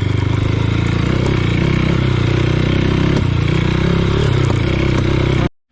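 Motorcycle engine running steadily under way on a rough track, with road and wind noise over it, cutting off abruptly near the end.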